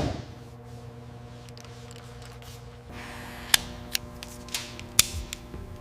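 Four sharp taps, about half a second apart, over a steady low hum of several level tones.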